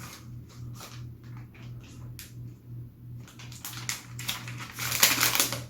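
Cardboard packaging of an Apple Magic Keyboard box being worked open by its paper pull tab: scattered short scratchy clicks, then a denser, louder stretch of scraping and tearing from about three and a half seconds in. A low steady hum runs underneath.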